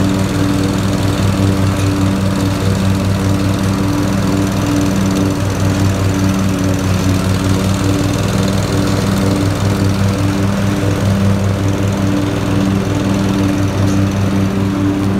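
Cub Cadet ZTS2 zero-turn riding mower's engine running steadily at a constant speed while mowing, heard up close from the operator's seat.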